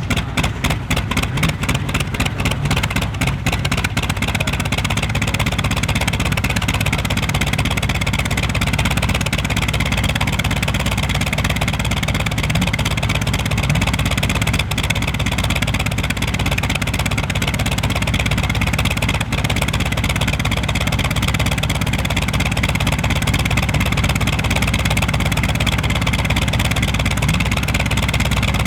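North American T-28 Trojan's radial piston engine running at idle on the ground, pulsing unevenly for the first few seconds before settling into a steady low rumble: the engine just after start-up.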